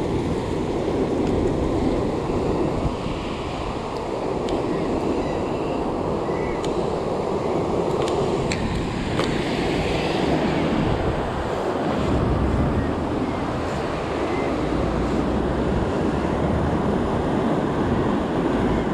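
Ocean surf breaking and washing over shoreline rocks, a steady rush of water with wind buffeting the microphone. A few faint clicks come through in the first half.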